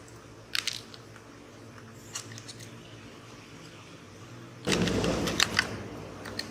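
Phone box and accessories being handled: a few light clicks and taps, then about a second of louder rustling and clicking near the end as items are moved in the packaging.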